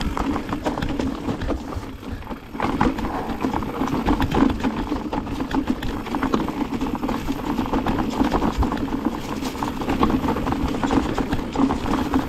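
Mountain bike riding down a rough, stony dirt trail: tyres crunching over stones and the bike rattling with many small irregular knocks, over a steady rolling noise that gets louder a couple of seconds in.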